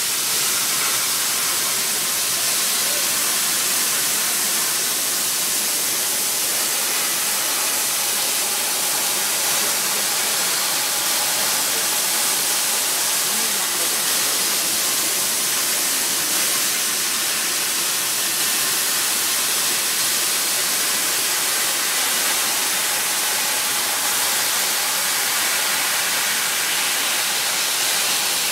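8000 W laser cutter cutting 16 mm brass plate: a steady, even hiss from the cutting head as the beam and gas jet work through the metal.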